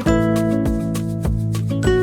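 Background music: a guitar-led track with a steady beat and a chord change right at the start.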